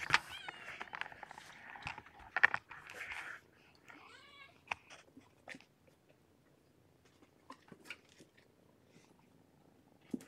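Kittens mewing and scuffling at play: a short mew right at the start and a wavering mew about four seconds in, over rustling and a few soft ticks and knocks.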